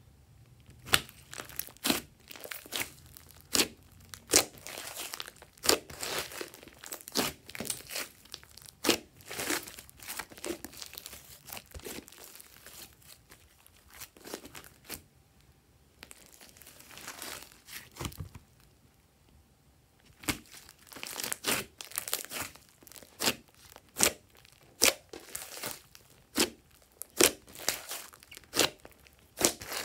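Hands squishing, folding and stretching a large mass of glossy slime, making irregular sticky clicks, pops and crackles, with a couple of quieter pauses midway.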